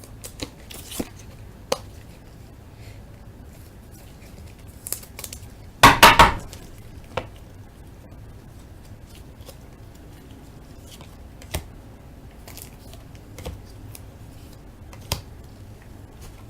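Trading cards and their plastic sleeves and holders being handled on a table: scattered light clicks and taps, with a louder cluster of three quick clacks about six seconds in.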